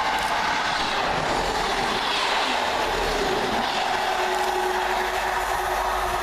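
Two coupled Class 158 diesel multiple units running through the station, a steady rush of wheel and engine noise, with a faint steady whine joining about three and a half seconds in.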